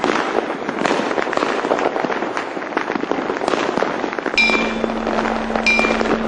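Many firecrackers and fireworks popping and crackling in a dense, irregular barrage. About four seconds in, music with a held note begins under the crackle.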